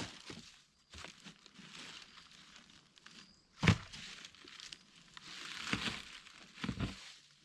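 Footsteps crunching and rustling through dry ground litter, irregular, with one sharp louder thump about halfway through.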